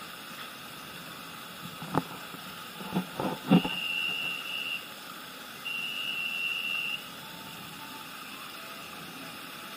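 Two long, steady high-pitched tones, each lasting about a second, with a short gap between them, following a few sharp knocks, over a steady background hiss.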